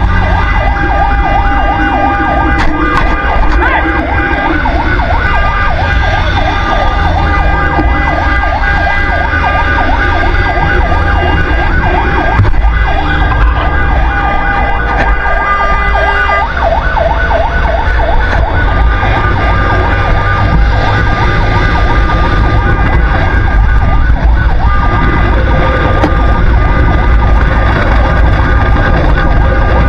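Fire truck siren sounding while driving, in a rapid repeating yelp for about the first half, then switching to steadier held tones with short breaks. Under it runs a constant low rumble from the moving truck.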